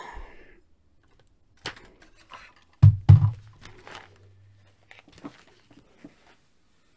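Small plastic action figures clicking and clattering as hands rummage through a plastic storage tray, with one dull thump about three seconds in.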